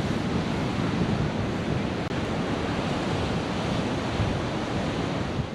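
Wind rushing and buffeting over the microphone, a steady rushing noise like surf, which fades away at the very end.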